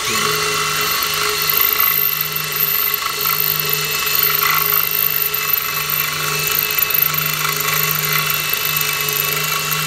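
Power drill running under load, a twist bit boring through the aluminum housing of a Mercury Racing Six sterndrive to open a pilot hole up to full size. A steady whine that spins up just at the start and holds even throughout.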